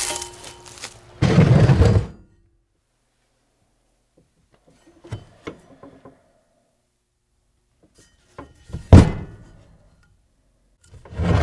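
A steel leaf spring being handled on a wooden bench: knocks and clatter, with one sharp, heavy thunk about nine seconds in.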